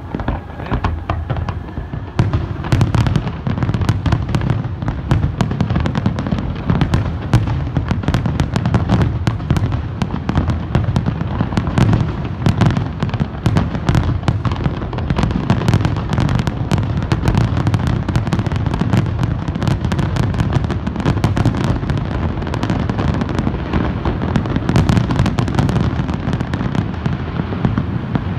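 Fireworks display: a dense, continuous barrage of booming shell bursts and sharp crackling, picking up about two seconds in and thinning out near the end as the finale dies away.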